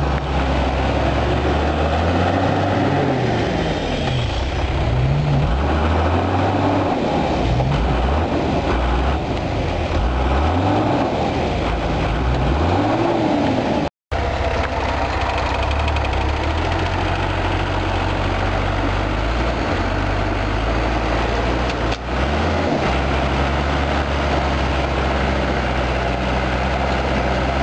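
Off-road 4x4 engine revving up and down again and again. After a brief break about halfway, it runs at a steadier speed.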